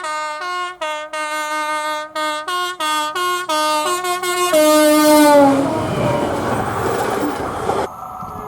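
Train's two-tone horn played in a quick run of about a dozen short blasts alternating between a high and a low note. Then comes one longer blast that drops in pitch, followed by the rushing noise of the train going by. Near the end the sound cuts abruptly to a quieter train scene.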